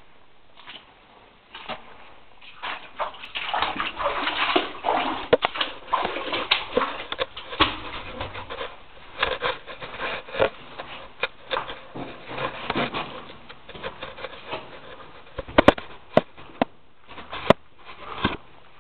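Footsteps wading and splashing through shallow water over a rock floor, with scuffs and scrapes, and a few sharp clicks late on.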